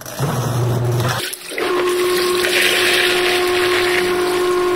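Water rushing and churning in the tub of a semi-automatic washing machine (tanquinho) as the homemade liquid soap mixture goes in. After a short break about a second in, a steady motor hum sets in under the sloshing water.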